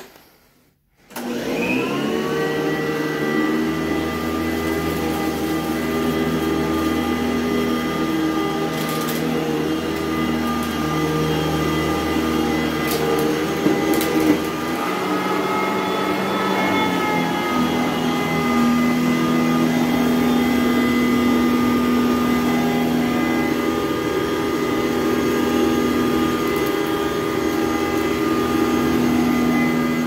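Sanitaire SC899 commercial upright vacuum cleaner switched on about a second in, its motor spinning up to speed with a quickly rising whine, then running steadily while vacuuming carpet. A few sharp ticks come through partway along, and its tone shifts about halfway through.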